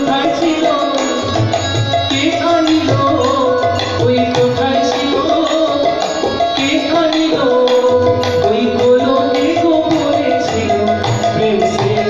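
Bengali devotional song: a man singing with harmonium drone and chords, accompanied by tabla strokes with deep bass thuds.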